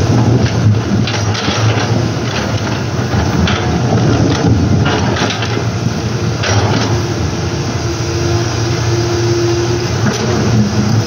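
Komatsu PC200 hydraulic excavator's diesel engine running steadily under load as its bucket digs into a rocky riverbed, with rocks knocking against the bucket several times. A higher steady whine holds for a couple of seconds past the middle.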